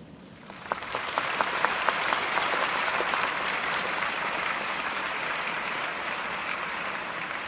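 A large auditorium audience applauding: a few scattered claps about half a second in, quickly swelling into steady, dense applause.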